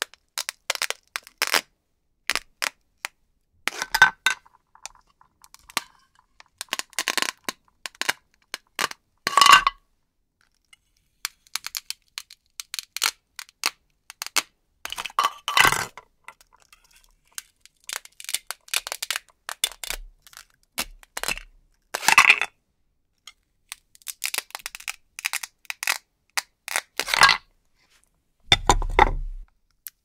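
Velcro ripping apart as a knife cuts through toy plastic fruits and vegetables whose halves are held together by Velcro: a long series of short crackling tears with pauses between, with plastic pieces clicking as they are set down. A duller, lower knock near the end.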